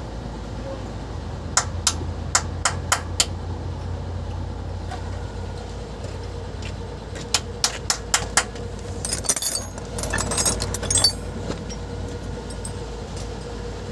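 Quick runs of sharp metal-on-metal hammer blows, five or six strikes at about three a second, twice, then a jangling clatter of metal hand tools. A steady low engine hum runs underneath.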